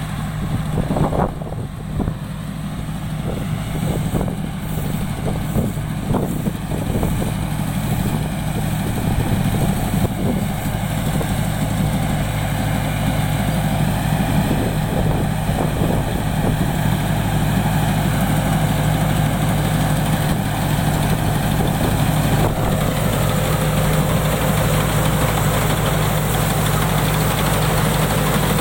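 Diesel engine of a Somboon Phatthana combine harvester running steadily, with irregular knocks over roughly the first half.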